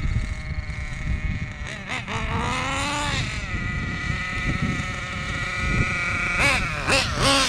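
Kyosho Inferno GT2 RC car's small glow-fuel (nitro) engine idling steadily while being tuned, with short throttle blips that briefly raise the pitch a few times, the last near the end.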